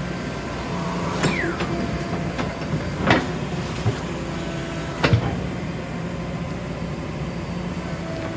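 Backhoe loader's diesel engine running steadily, with a short falling squeal about a second in and several sharp clanks and bangs in the middle.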